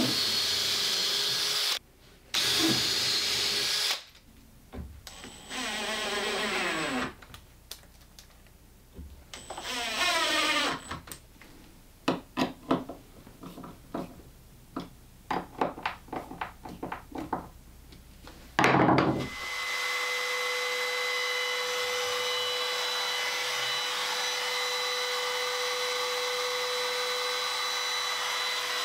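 Makita 18V cordless drill driving screws into a steel concealed hinge on a birch ply door in several short bursts. Next comes a string of small clicks from a hand screwdriver. Then, about two-thirds through, a compact router starts with a loud burst and runs steadily with a constant whine.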